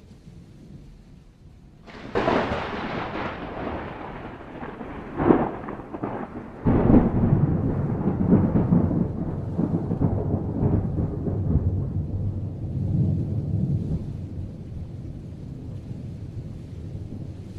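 Thunder: a sudden crack about two seconds in, two more sharp peals around five and seven seconds, then a long low rolling rumble that slowly dies away.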